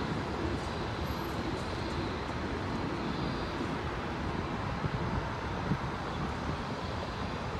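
Distant jet airliner climbing out after takeoff, its engines a steady rumble mixed with airport background noise.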